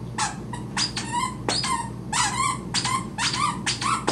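A dog whining in a string of short, high-pitched cries, about three a second.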